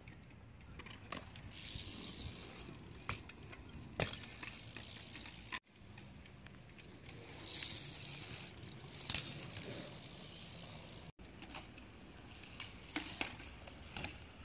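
A BMX bike riding on concrete: tyres rolling with a steady hiss, small clicks and rattles from the bike, and two sharp knocks about four and nine seconds in. The sound drops out briefly twice where clips are cut together.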